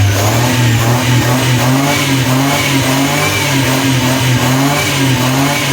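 1985 Maruti SS80's three-cylinder petrol engine running at raised revs, heard at the exhaust tailpipe: a steady low drone that wavers slightly in pitch.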